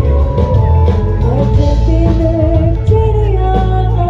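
A woman singing a melody into a microphone with a live band, played loud through a stage sound system, with heavy bass and a drum beat under her voice.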